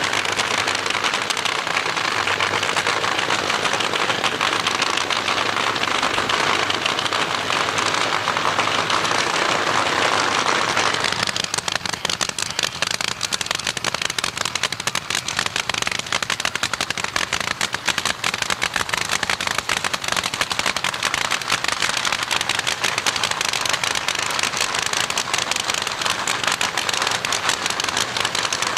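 Drag racing engines running with a dense, steady crackle of rapid popping, easing a little about eleven seconds in.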